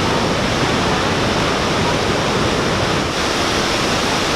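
Victoria Falls, the Zambezi River's waterfall: a loud, steady rush of falling water and spray.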